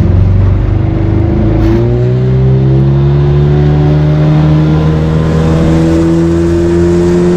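30 hp Mikatsu two-stroke outboard motor opened up to full throttle: its note climbs about a second and a half in, then holds high and steady, edging slightly higher as the boat gathers speed.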